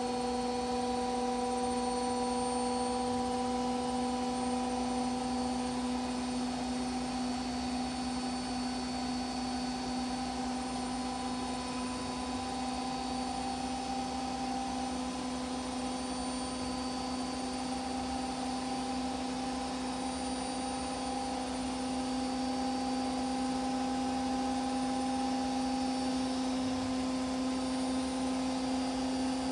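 Washing machine running: a steady motor hum with one strong low tone and its overtones over a whirring noise, unbroken throughout.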